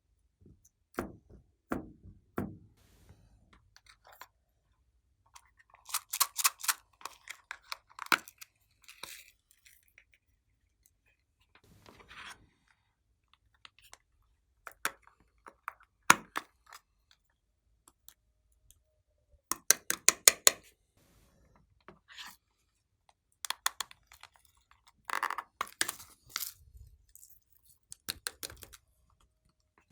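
Glossy slime being squeezed and poked by hand, giving scattered sticky clicks and several short bursts of rapid crackling pops.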